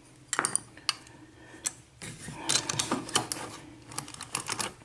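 Small metallic clicks and rattles from handling a just-picked brass padlock and the lock-picking tools: a few separate clicks, then a busier run of clattering about halfway through.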